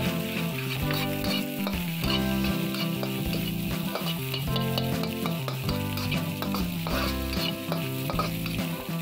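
Fried rice sizzling in a hot wok as a metal spatula stirs and scrapes it, with frequent short scrapes of metal on the pan, over steady low tones.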